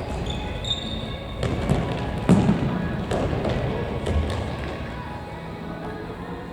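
Futsal ball being kicked and bouncing on an indoor sports hall floor: a handful of sharp thuds, the loudest a little over two seconds in, over background music and players' voices.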